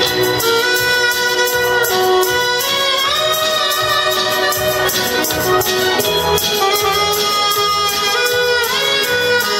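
Alto saxophone playing a melody of held notes with slides between them, over accordion and a steady beat.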